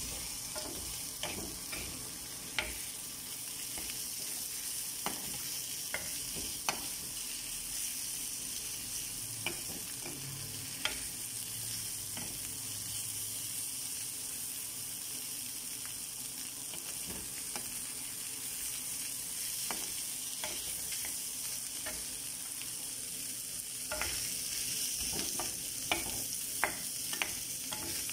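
Shrimp in their shells sizzling in a frying pan, a steady hiss, with scattered clicks and scrapes of a spatula stirring them against the pan; the clicks come more often near the end.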